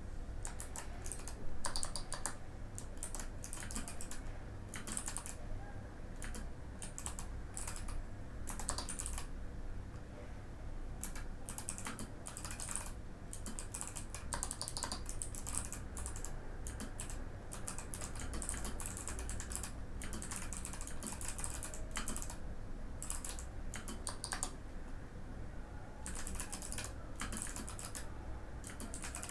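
Mikit M65 mechanical keyboard with clicky Box White switches being typed on: fast runs of crisp keystroke clicks in irregular bursts with brief pauses, over a faint steady low hum.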